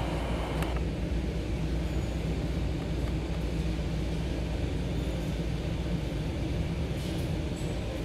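Static and low hum from a Timex T618T clock radio's speaker while it is tuned across the AM band between stations, with no station coming in. A couple of faint clicks come from the tuning buttons, one just after the start and one near the end.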